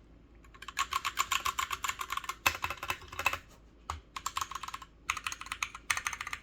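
Fast typing on a Royal Kludge RK100 Pro mechanical keyboard with brown switches and its stock double-shot PBT keycaps: rapid runs of key clacks, a long flurry first, then shorter bursts with brief pauses between.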